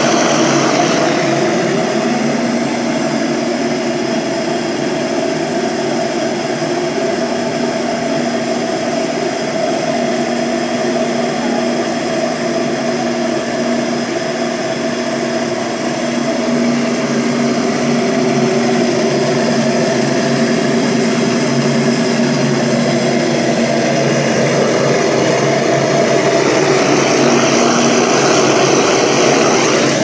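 Kretor 15-litre stainless-steel tilting industrial blender running steadily, its blade whirling a batch of papaya into a liquid vortex: a constant motor hum.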